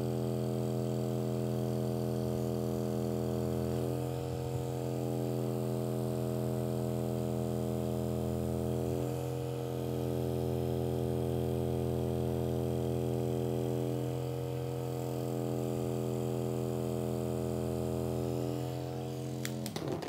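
Electric handheld massage tool running against the neck and shoulder muscles, a steady motor hum that dips slightly every few seconds as the pressure shifts, then switched off near the end.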